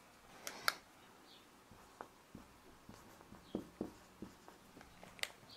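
Faint, irregular short strokes of a marker writing on a board, with small squeaks and taps as letters are formed.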